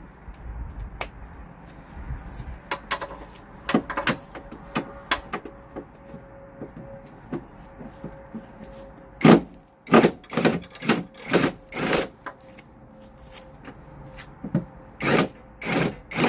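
Hand tools working on metal under a car: a socket spanner undoing nuts, with scattered clicks and knocks and a cluster of louder clanks about nine to twelve seconds in and again near the end.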